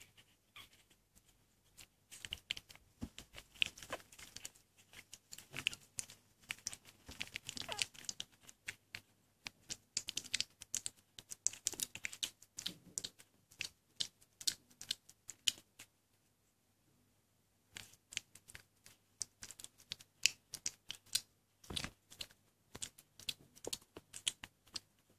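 Newborn puppies wriggling and mouthing each other on a towel: a fast, irregular run of small clicks and rustles, with a brief lull about two-thirds of the way through.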